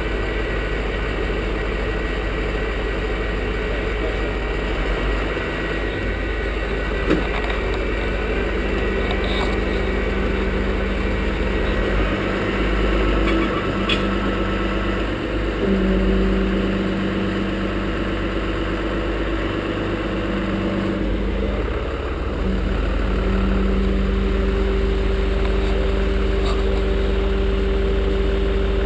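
A truck engine idling steadily, its pitch stepping up and down a little several times as it is worked.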